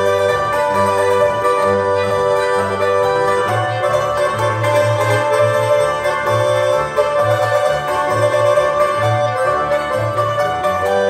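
Live Swiss folk music from a quartet of violin, hammered dulcimer (Hackbrett), double bass and small button accordion: held accordion chords and dulcimer notes over a pulsing bass line.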